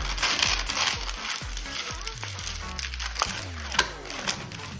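Sheet of sandpaper being folded and creased by hand: a papery crinkling rustle, strongest in the first second, with a few short sharp crackles later. Background music with a bass line plays under it.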